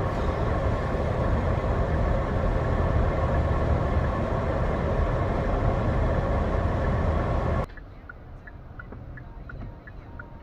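Car cabin road and engine noise while driving: a steady drone with a constant hum. It cuts off suddenly after about seven seconds into a much quieter cabin with a light, regular ticking.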